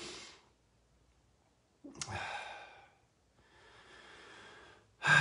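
A man breathing out heavily and sighing, overcome with emotion: a short exhale at the start, a sigh with a sharp click about two seconds in, a softer breath, then a louder sigh right at the end.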